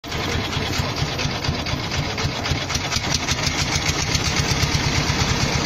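Boat engine running steadily with a fast, even beat, over the rush of river water past the hull.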